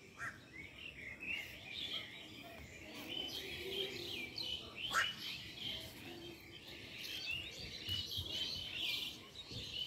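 Small birds chirping and twittering in trees, many short calls overlapping. One sharper, louder sound comes about halfway through.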